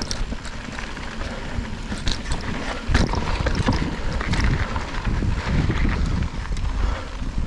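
Wind buffeting the microphone while a mountain bike rolls fast down a loose-dirt trail, with scattered clicks and rattles from the tyres and bike. The rumble gets louder from about three seconds in.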